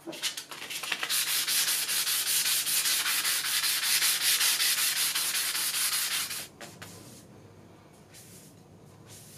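Hand sanding of a carbon fibre tube with 400-grit sandpaper: quick, even back-and-forth rubbing strokes that stop about six and a half seconds in, followed by a couple of faint brief rubs near the end. The sanding smooths out tiny variations in the tube's diameter where a bushing was binding.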